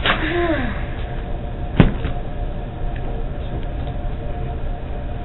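A short voice sound sliding down in pitch, then a single sharp thump about two seconds in, over a steady low room hum.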